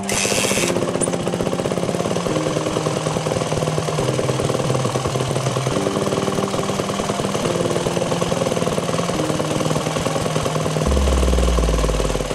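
Yamaha four-stroke motocross bike kicked over, its engine catching suddenly and running steadily through a new FMF Powercore 4 slip-on exhaust.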